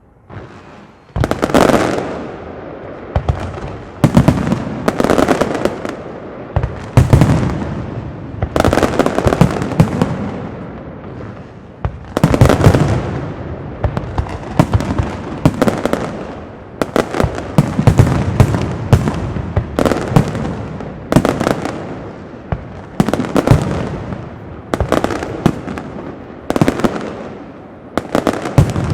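Aerial fireworks display: shells bursting overhead in quick clusters of loud bangs, with crackle and echo ringing on between them. It starts about a second in and keeps up steadily throughout.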